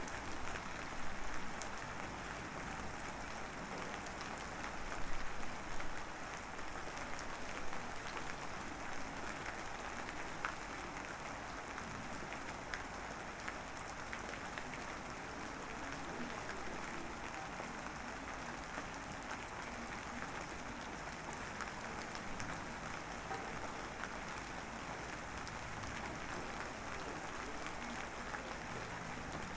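Light drizzle falling, a steady patter of fine raindrops with a few slightly louder spells about a second in and around five seconds in.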